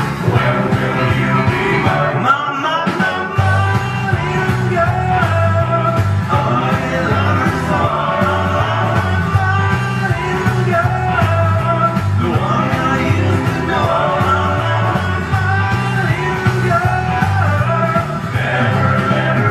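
A rock and roll record playing: a singer over a band, with the bass line moving in steady, even steps.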